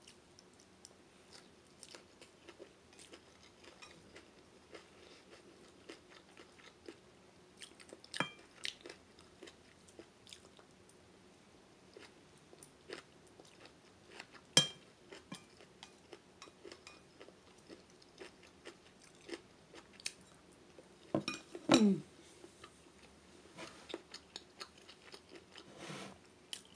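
A person chewing a mouthful of rice noodles close to the microphone, with many small mouth clicks and a few sharper clicks. The loudest sound is a short one that falls in pitch, about two-thirds of the way through.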